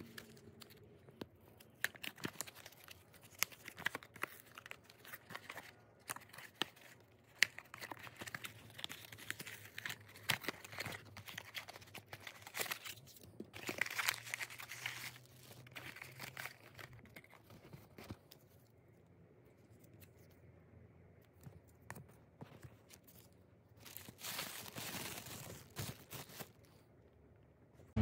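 A small cardboard toy blind box being opened by hand: the cardboard tears and crinkles, with many small clicks and rustles. The tearing is longest about halfway through and again near the end.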